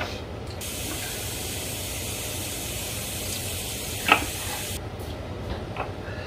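A steady hiss that starts suddenly about half a second in and cuts off just before five seconds, with one sharp knock about four seconds in, fitting a knife striking a wooden cutting board while a jalapeño is sliced.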